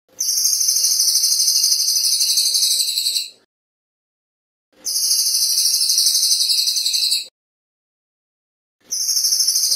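Crested jay (cililin) giving long, rapid, very high rattling calls in three bouts. The first lasts about three seconds and the second about two and a half, each separated by a pause of over a second. The third begins near the end.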